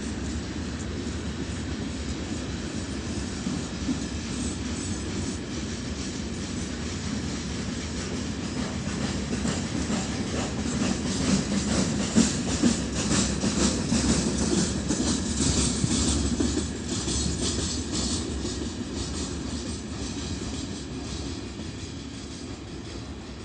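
Freight train wagons rolling past slowly, wheels clicking over the rail joints under a steady rumble. The clicking grows loudest about halfway through, then the sound gradually fades.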